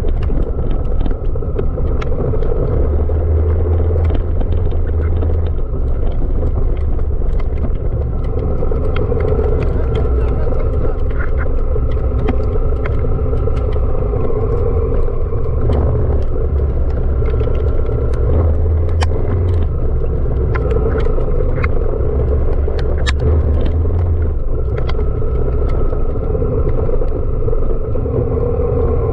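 Honda Africa Twin CRF1000L DCT's parallel-twin engine running steadily on an off-road ride, under a heavy low rumble, with scattered sharp clicks.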